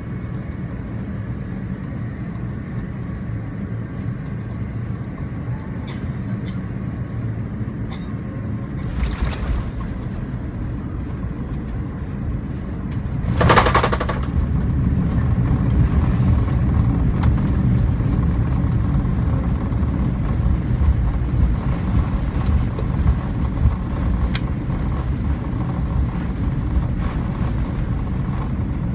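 Airbus A350 heard from the cabin during landing: a steady low rumble of the Rolls-Royce Trent XWB engines and airflow on final approach, then a sudden loud jolt about halfway through as the wheels touch down. A louder, rougher rumble of the landing roll follows.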